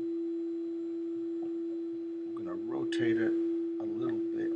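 A steady, unchanging single-pitched hum runs throughout. A man's voice says a few indistinct words about halfway through and again near the end.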